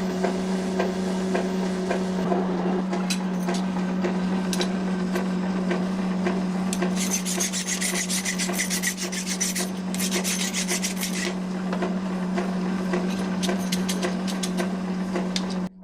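Rasping, scraping strokes of steel being worked by hand, over a steady machine hum; the scraping grows harsher for a couple of stretches midway, and everything cuts off abruptly at the end.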